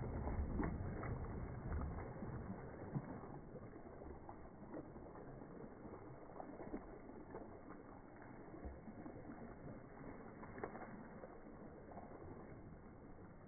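Quiet outdoor background noise, with a low rumble in the first couple of seconds and scattered faint taps and ticks.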